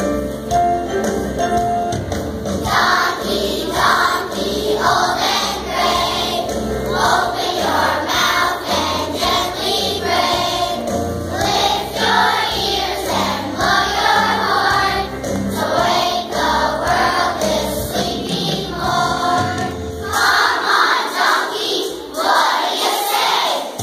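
Children's choir singing a song over instrumental accompaniment; it opens with a few seconds of accompaniment alone, and the singing comes in after about two and a half seconds. Near the end the low accompaniment drops away while the voices carry on.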